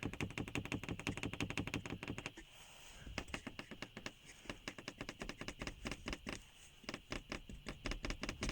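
Nissan X-Trail T32's panoramic-roof headliner crackling under a light touch: a rapid, irregular run of sharp clicks, pausing briefly about two and a half seconds in before going on. The cause of this roof creak is unknown.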